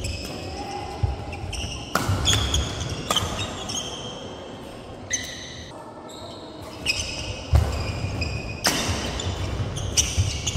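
Badminton doubles rally: sharp cracks of rackets hitting the shuttlecock, irregularly about once a second, with sport shoes squeaking and feet thudding on the wooden court floor. Quieter for a moment in the middle, when the rally ends, before play starts again.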